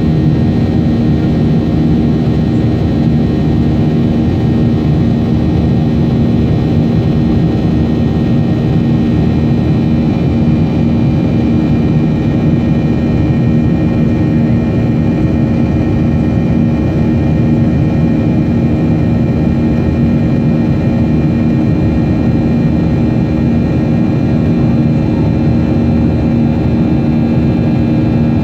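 Jet airliner cabin noise during the climb after takeoff: the engines and airflow make a steady drone with several steady tones running through it.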